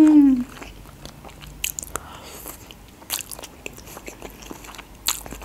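A person eating wok noodles with chicken: wet chewing, lip smacks and small mouth clicks, with noodles sucked in through the lips. It opens with the tail of a short hummed "mmm".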